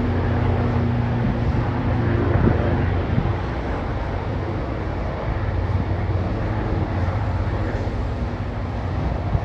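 A steady low engine hum under a constant rushing noise.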